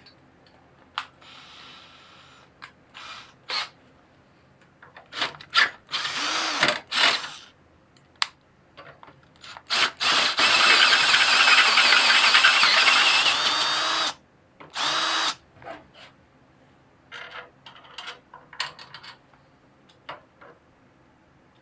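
Cordless battery drill boring through the steel plate of a garden tractor frame: a few short bursts, then one long steady run of about four seconds, then one more short burst. Light metal clicks and taps come before and after.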